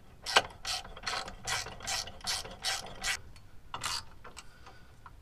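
Socket ratchet with an extension clicking in short bursts, about three strokes a second, as it runs down the 17 mm differential cover bolts snug. After a pause it strokes once more near the end.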